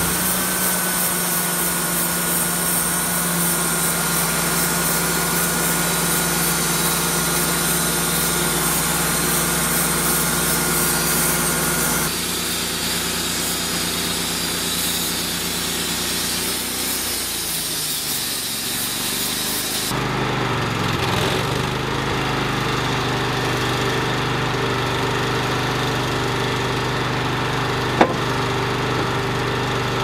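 Wood-Mizer LT35 portable band sawmill running, its band blade cutting through an American chestnut log with a steady high whine over the engine. The sound changes abruptly about twelve and twenty seconds in; after that the mill's engine runs on steadily at a lower pitch without the whine, with one sharp click near the end.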